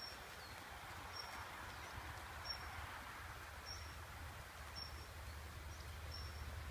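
Quiet outdoor background with a bird repeating a short, high call about once a second, over a faint low rumble.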